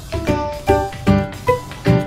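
Background music: a tune of short notes that die away, over a steady beat.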